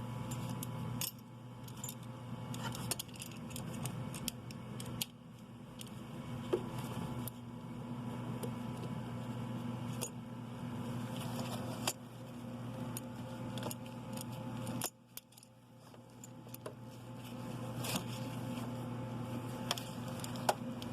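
Metal hand tools clicking and clinking against metal in an engine bay, with scattered sharp knocks, as a spring-type hose clamp is worked off the turbocharger's coolant hose with clamp pliers. A steady low hum runs underneath.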